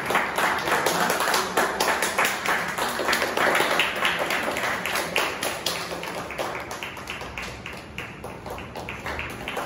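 Audience clapping hands, a dense run of claps that slowly dies down.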